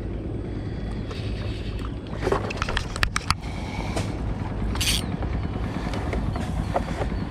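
Spinning reel being cranked as a small fish is played on an ultralight rod, over a steady low rumble. A quick cluster of sharp clicks comes about three seconds in, and a short hiss near five seconds.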